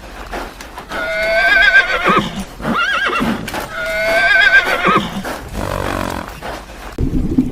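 An equine animal whinnying: two long, quavering whinnies, with shorter calls between them. About a second before the end the calls stop and a low rushing noise cuts in.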